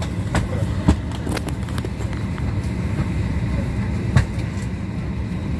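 Steady low rumble inside a Boeing 737-800's passenger cabin, with scattered short clicks and knocks; the sharpest come about a second in and about four seconds in.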